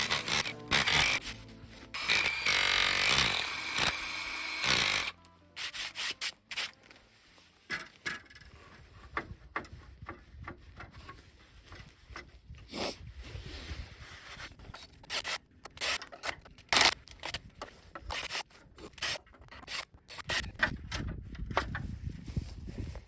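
Hands-on work sounds: a few seconds of loud rubbing, sawing-like scraping that stops suddenly about five seconds in, then scattered knocks and clicks of handling parts.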